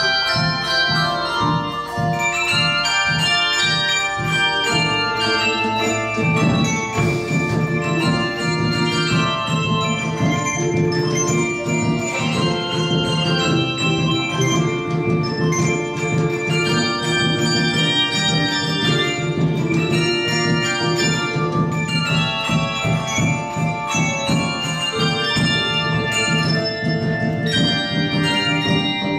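English handbell and handchime choir playing music, many bells struck in a quick, steady rhythm with ringing overlapping tones. Sustained low notes come in about six seconds in and carry under the melody.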